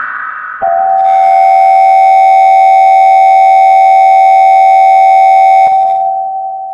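Emergency Alert System attention signal: a loud, steady alert tone that comes in about half a second in, holds for about five seconds, then fades away.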